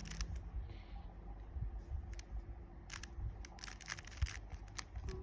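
A plastic 3x3 Rubik's Cube being turned by hand, its layers clicking as they snap round in a series of quick irregular twists, with a burst of rapid turns about three and a half seconds in.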